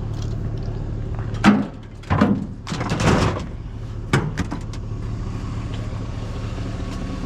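Truck engine idling steadily, with a few knocks and clattering: a sharp knock about a second and a half in, a noisier clatter between two and three and a half seconds, and one more knock a little after four seconds.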